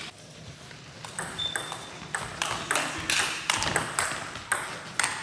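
Table tennis balls clicking off rackets and the table in irregular knocks from rallies. The clicks are sparse at the start and come thicker and louder from about a second in.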